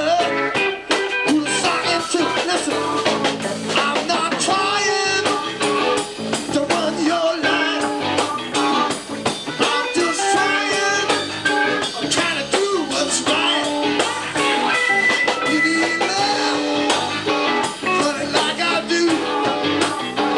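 Live band playing: electric bass, drums, keyboards and electric guitar, with a steady beat of drum hits.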